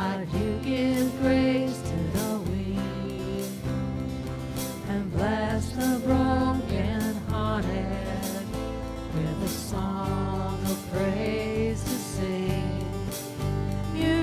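A church praise band playing a contemporary Christian worship song, with a wavering sung or played melody over sustained bass notes and regular percussive strokes.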